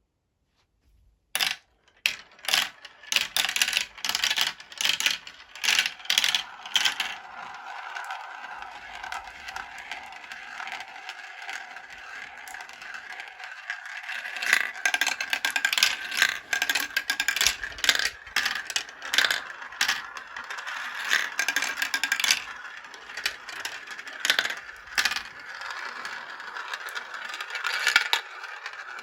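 Marbles running down a marble-run track: a quick string of sharp clacks starting about a second and a half in, then a steady rolling rattle with frequent clicks as they roll and knock along the track.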